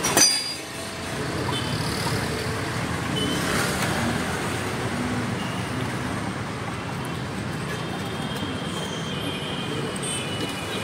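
Steady street background noise with traffic hum, and a short sharp clink just after the start.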